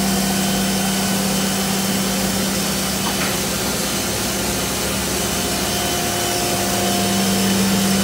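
Steady machinery hum with one strong low tone and fainter higher tones, from the Boeing 747's nose cargo door drive running as the door closes.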